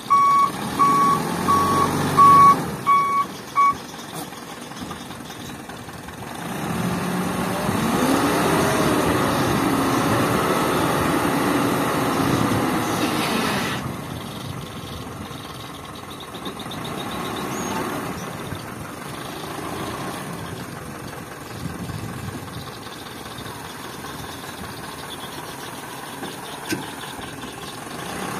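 Isuzu Elf dump truck's reversing alarm beeping about twice a second for the first few seconds. Then its diesel engine is revved for several seconds to drive the hydraulic hoist that tips the loaded bed, and it drops back to idle about 14 seconds in as the emptied bed comes back down.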